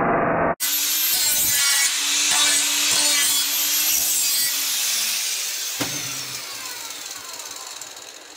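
Angle grinder grinding the sheet-metal edge of a chromed aftermarket VW fan shroud. The motor's whine holds steady, then after about four and a half seconds falls in pitch and fades as the grinder spins down.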